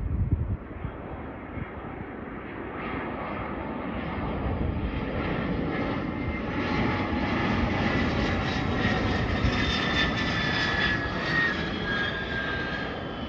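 Bombardier Challenger 350 business jet's twin turbofan engines on landing approach, passing low overhead. The jet noise grows louder toward the middle and later part, with a high whine that slides slightly down in pitch near the end. A brief low thump sounds at the very start.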